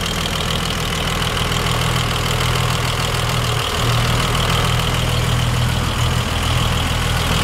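Gray Marine 140 flathead six-cylinder marine engine of a 1954 Century Resorter idling steadily, with a steady high whine alongside.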